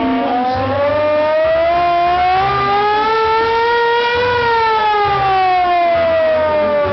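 Hand-cranked siren wailing. Its pitch climbs slowly to a peak a little past the middle, then slides back down as the cranking slows.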